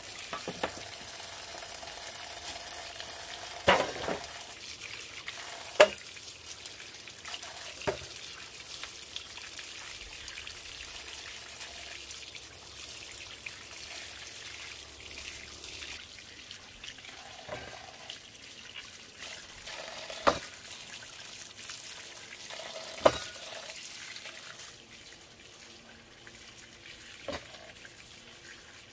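Food sizzling in a hot pan, a steady hiss broken by a few sharp clinks of a utensil against the pan; the sizzle dies down near the end.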